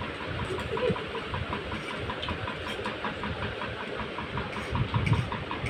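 Steady hum of a small motor with a light regular ticking, about five ticks a second.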